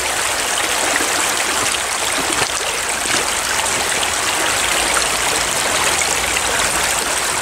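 Shallow creek running over a rocky bed: a steady, even babble of flowing water.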